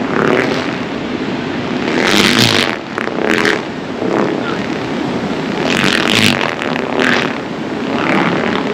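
Kites buzzing as they catch the wind, a rough steady drone, with louder surges of rushing air about two and six seconds in.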